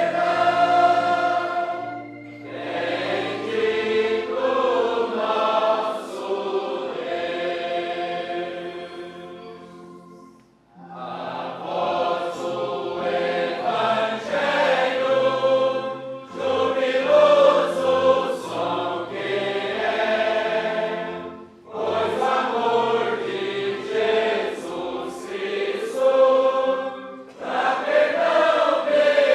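Choir singing a Portuguese gospel hymn in phrases, with short breaks between the phrases and a near-pause about ten seconds in.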